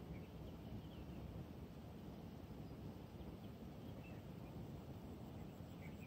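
Quiet outdoor ambience: a steady low background rumble with a few faint, short bird chirps scattered through it.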